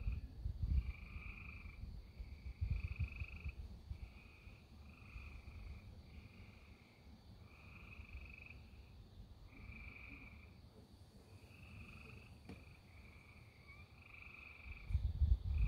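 Frogs calling in a chorus: trilled calls about a second long repeating one after another, over a gusty low rumbling noise.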